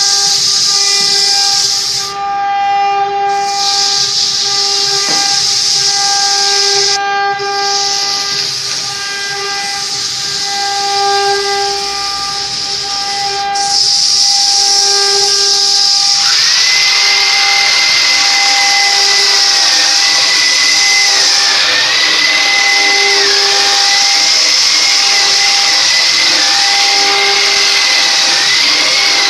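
Sawmill machinery running: a loud steady hiss over a steady whine. About halfway through, a higher whine joins and dips in pitch every second or two.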